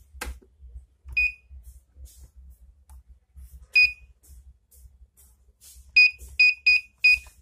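Keypad of a Swaggers Black Pro note counting machine beeping as its buttons are pressed: six short high beeps, one about a second in, one near four seconds, then four quick ones close together near the end.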